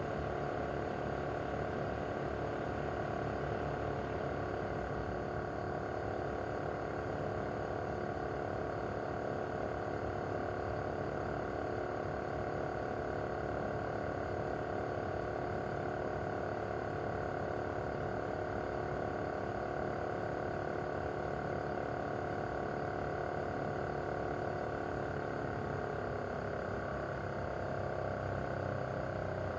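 Mitsubishi Heavy Industries SRC2221T air-conditioner outdoor unit running in cooling mode: a steady hum of several tones from its single-rotary inverter compressor over the whoosh of the fan. Over the last few seconds the tones slide a little lower in pitch as the inverter brings the compressor speed down.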